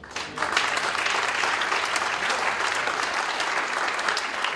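Audience applauding: clapping breaks out suddenly at the start and holds steady.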